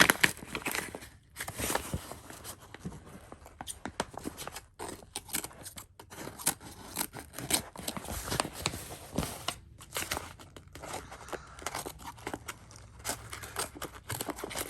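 Shipping package being opened by hand: irregular crinkling, tearing and scraping of the packaging, with many small clicks.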